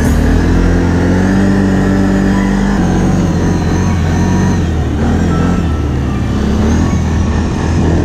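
Can-Am Renegade 650 XXC's V-twin engine running under load through deep snow. Its note holds steady for about three seconds, then drops and rises as the throttle changes.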